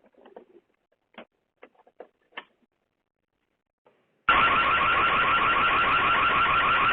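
A few faint taps, then about four seconds in a Ring security camera's built-in siren starts abruptly: a loud, steady electronic alarm with a fast warble, sounded by the homeowner to scare off a would-be thief.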